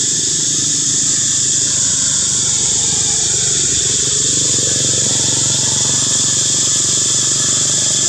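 An engine running steadily with a low hum, under a constant high-pitched hiss.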